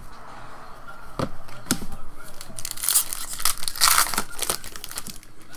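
A foil trading-card pack of Upper Deck Trilogy hockey cards being crinkled and torn open. Two short knocks come about a second in, then a few seconds of crackly tearing and crinkling of the wrapper, loudest around the middle.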